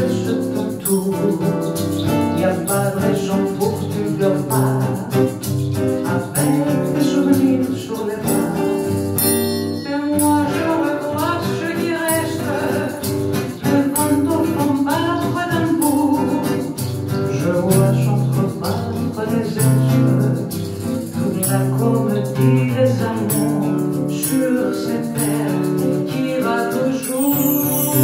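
A woman singing a slow chanson to a strummed nylon-string acoustic guitar, her voice pausing briefly about ten seconds in while the guitar carries on.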